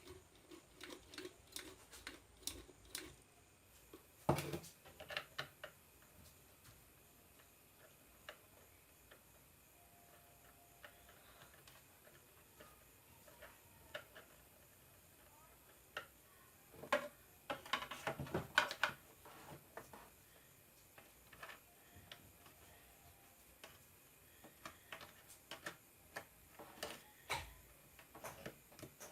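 Faint, scattered clicks and taps of small hard objects, with a sharper knock about four seconds in and a quick run of clicks past the middle.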